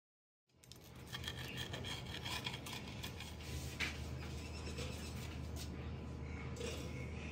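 Crisp toasted sandwich rasping and scraping on a wooden cutting board as it is handled and cut, with small clicks. A low steady hum runs underneath. The sound starts about half a second in.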